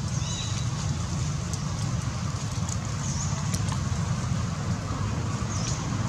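Steady low outdoor rumble, like distant traffic or wind, with a short high chirp heard three times, a couple of seconds apart.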